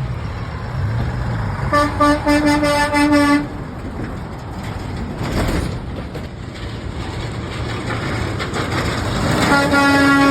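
Truck horn honking: a quick run of three or four short blasts, then one longer held blast near the end. A steady rumble of road traffic runs underneath, and a vehicle whooshes past in between.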